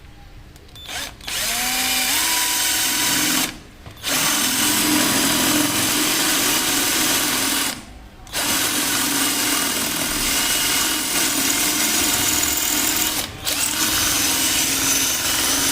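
Komax cordless drill drilling holes in four long runs, its motor whine climbing in pitch as it spins up at the start, with short stops between runs.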